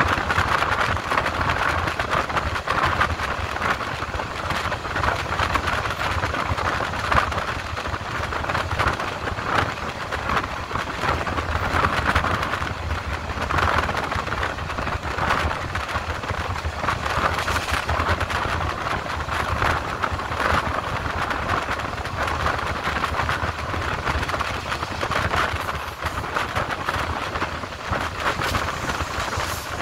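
Passenger train running along the line, heard from on board: a steady rumble of wheels on rail with frequent small clicks and rattles.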